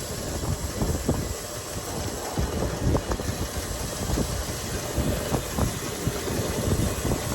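Ranch feed truck's engine running steadily as it drives, heard from inside the cab.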